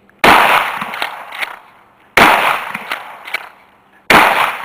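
Three shots from a Remington 870 pump-action shotgun with low-recoil 00 buckshot, about two seconds apart, the last one near the end. Each shot is followed by an echo that fades over a second or more. Quieter clacks come between the shots as the pump is worked.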